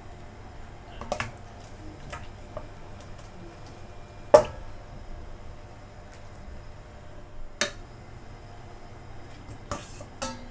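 Metal ladle clinking against the rim and sides of a metal pan while stirring raw chicken pieces in coconut milk: about half a dozen separate sharp clinks, the loudest a little past four seconds in, over a faint steady low hum.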